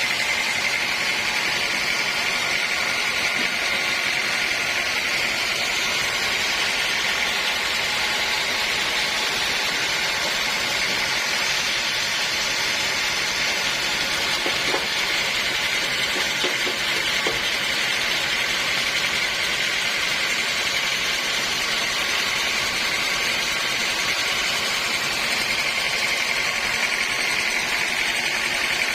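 Sawmill saw running steadily, with a continuous high whine over a hiss of cutting noise.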